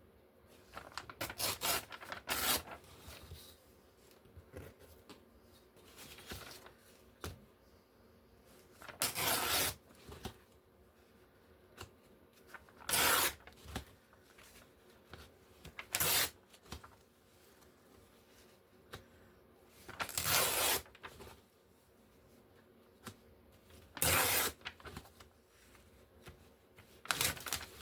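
Paper being torn into long strips: about seven short rips a few seconds apart, with quieter rustling of the paper being handled between them.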